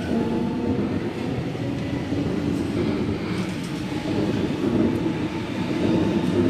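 Sydney Trains Waratah Series 2 double-deck electric train pulling out of the platform and passing close by: a steady rumble of the cars and wheels, with a few faint clicks.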